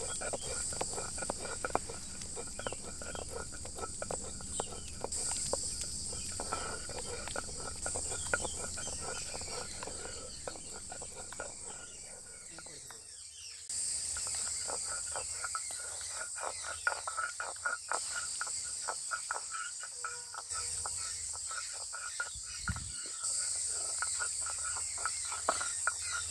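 A serrated knife cutting rounds off a hand-held eggplant, heard as a run of many short clicks and scrapes. Behind it is a steady high-pitched insect chorus.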